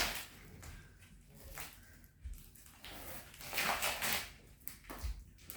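Thick plastic mattress wrapping rustling as a knife cuts through it, in a few short bursts, the loudest about four seconds in, with a few light knocks.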